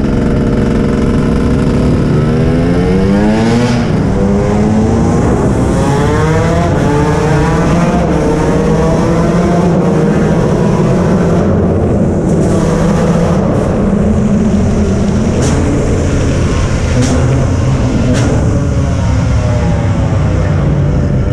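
Motorcycle engine under hard acceleration, its pitch climbing and dropping back again several times as it is run up through the gears, over steady wind rush.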